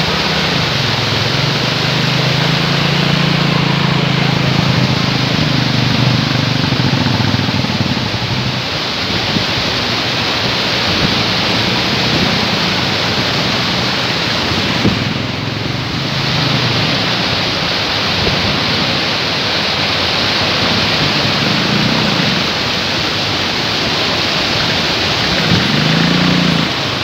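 Motorcycle being ridden: steady rushing wind noise over the microphone, with the engine's note rising and falling during the first several seconds and coming back briefly a few times later.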